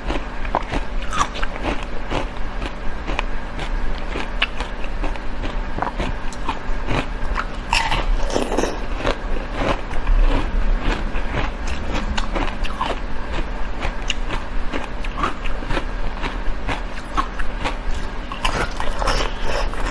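Shaved ice being bitten and chewed close to the microphone: a continuous run of crisp, irregular crunches, busiest about eight seconds in and again near the end.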